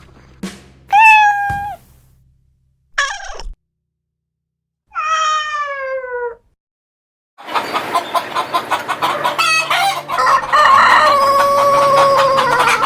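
Domestic chickens: a few separate calls in the first half, then a busy stretch of overlapping clucking and crowing, with a long held rooster crow near the end.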